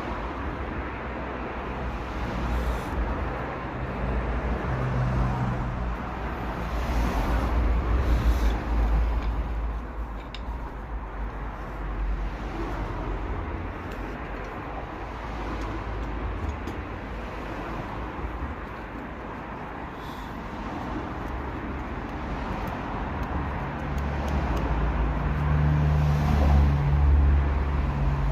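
A car running, a steady low rumble that grows louder twice, about a third of the way in and again near the end.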